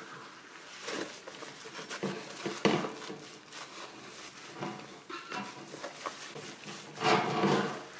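Damp microfiber cloth wiped in short, uneven strokes over a desk fan's plastic blades, with rubbing and light squeaks. There is a sharp knock a little under three seconds in, and the loudest, longest stroke comes near the end.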